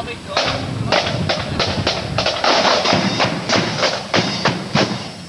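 Marching band drums, snare drums and a bass drum, playing a steady marching beat of about three strikes a second.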